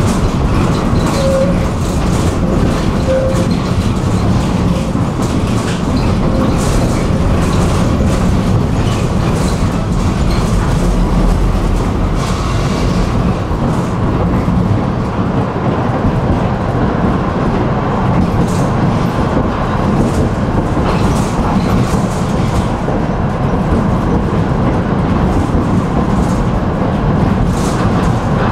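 Tram running along the track: a steady rumble and hiss of wheels on rails, with scattered clicks as the wheels pass over rail joints.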